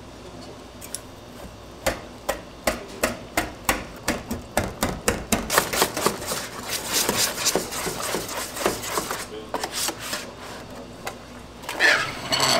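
A thick wet seasoning paste being mixed in a stainless steel hotel pan: a steady run of knocks against the pan at about three a second, with wet squelching between them. Near the end comes a short crinkle of plastic cling film being pulled over the pan.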